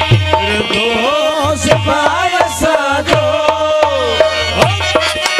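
Live Sindhi devotional folk music: a hand drum keeps a quick, steady beat under a sustained drone. From about a second in, a gliding, wavering melody line plays over it until near the end.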